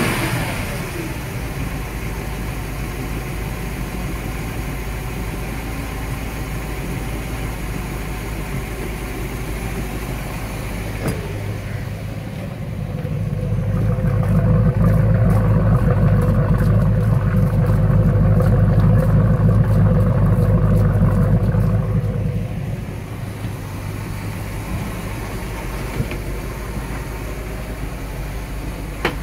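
Chris-Craft 305 V8 marine engine running steadily at idle during a test run. For about ten seconds in the middle it grows louder and deeper, then drops back to a steady run.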